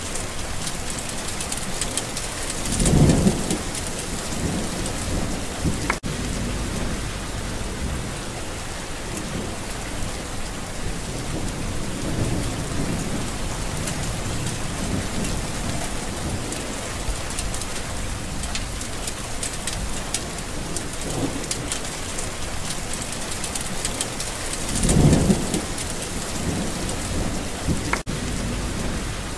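Steady heavy rain with two short low rumbles of thunder, one about three seconds in and a louder one near the end.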